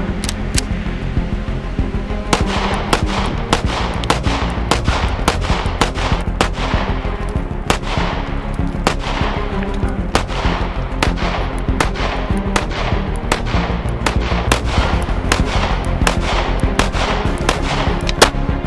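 Springfield Armory Hellcat RDP 9mm pistol firing a long string of shots, one or two a second, each trailing off in an echo. Background music plays underneath.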